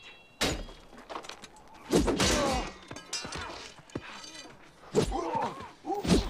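Film fight sound effects: a series of heavy thuds and cracking blows on a wooden shield a second or more apart, with men shouting and grunting through the strikes.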